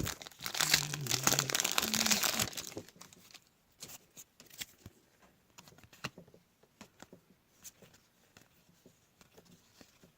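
Wrapper of a trading-card pack crinkling and tearing as it is opened, loud for the first two and a half seconds, then scattered soft clicks and rustles of the cards being handled.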